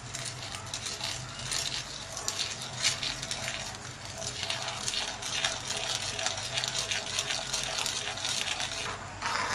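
Spoon scraping and clinking against the bottom of a pan while stirring a thin jelly mixture, a rapid, uneven run of small scrapes and ticks.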